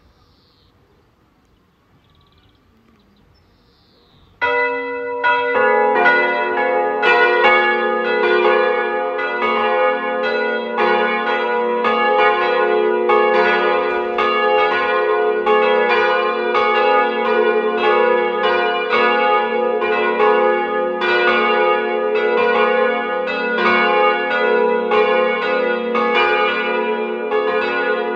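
The three church bells of St. Johannes der Täufer, an Ulrich & Weule peal of 900, 550 and 450 kg, start to ring for a service. The first bell strikes about four seconds in, the others join about a second later, and the full peal rings on with overlapping strokes.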